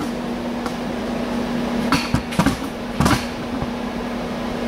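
Metal lathe running with a steady hum, with a few short knocks and clatters about two to three seconds in.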